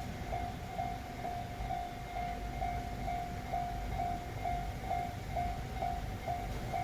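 Japanese railway level-crossing warning bell ringing at about two strikes a second, over the low rumble of a train passing on the tracks.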